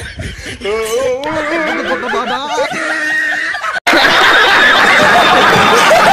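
Laughter: a single voice laughing at first, then, a little under four seconds in, a sudden cut to a studio audience laughing loudly and clapping.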